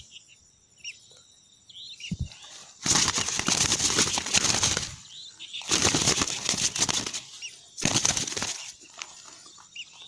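Birds caught in a net flapping their wings hard, in three bursts about three, six and eight seconds in, with faint chirps in between.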